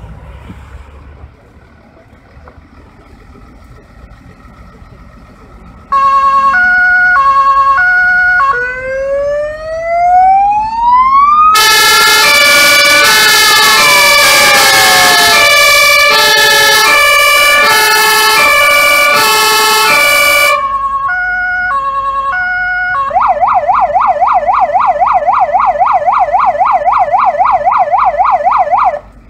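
Fire engine siren on a MAN 12.232 fire truck run through its tones: after about six seconds of low background it starts with a two-note hi-lo, then a wail that rises and falls, a louder, harsher stretch of the two-tone over the wail, the two-tone again, and finally a fast warbling yelp that cuts off suddenly near the end.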